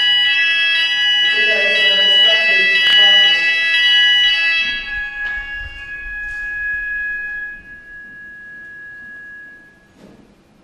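Chime-like ringing: several steady high tones sound together, struck again a few times in the first few seconds, then die away slowly, the last tone fading out about ten seconds in.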